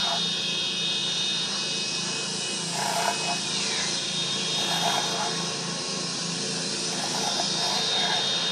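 Film soundtrack: a steady machine-like drone with a few short bursts spaced a few seconds apart and a faint voice.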